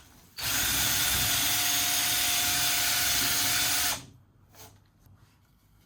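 Power tool spinning a wire brush, running steadily for about three and a half seconds with a faint steady whine, starting about half a second in and stopping suddenly. It is cleaning out the frame's steering head bearing seat before a new outer race is fitted.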